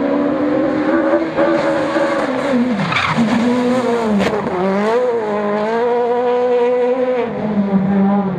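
Rally car engine at high revs passing close by, with tyre noise on the loose surface. The engine note drops sharply as it goes past, about three to four seconds in, then holds steady at high revs as the car pulls away.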